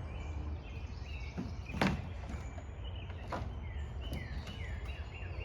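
A bird calling with repeated short downward-sliding chirps over a steady low rumble, with two sharp clicks, about two and three and a half seconds in.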